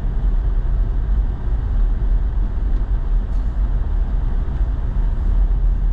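Steady rumble of a pickup truck driving, heard from inside the cab: engine and tyres on a snow-packed road.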